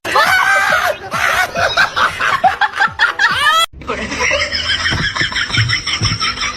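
People laughing. A sudden cut about three and a half seconds in leads to a second burst of quick, rhythmic laughter.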